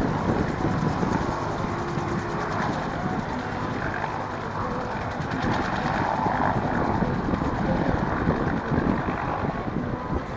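Steady drone of an aircraft, possibly a helicopter, at an even level.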